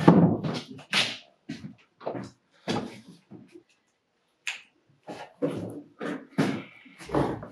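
A string of about a dozen short knocks and clatters at uneven intervals, with a gap of near silence in the middle and a brief scraping sound near the end.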